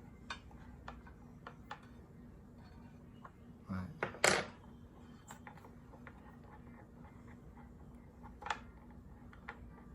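Scattered light clicks and taps of a small wrench and saw parts being handled while the blade bolt of a Ryobi cordless circular saw is loosened, with one sharper click about four seconds in.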